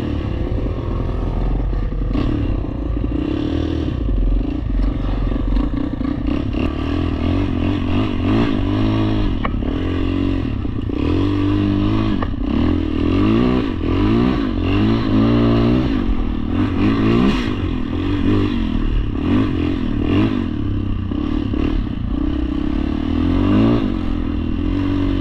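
ATV engine running under way, revving up and down again and again as the quad is ridden.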